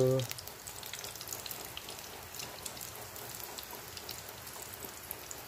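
Burger steak patties sizzling in hot cooking oil in a pan: a steady frying hiss with scattered small crackles and pops.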